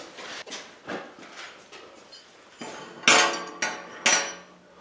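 Tapered pieces of 3/8-inch mild steel round stock clinking and clanking as they are handled, with light knocks at first and two louder ringing clanks about three and four seconds in.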